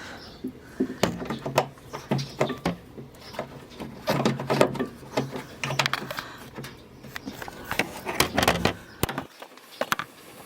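Irregular plastic clicks, knocks and scraping as a truck's windshield washer reservoir with its new pump is worked back into its mounting by hand.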